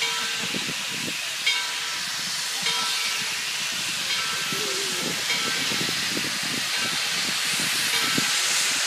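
Steam locomotive venting steam from its cylinder cocks as it starts to pull out, a steady loud hiss. A short ring repeats about every second and a quarter over the hiss.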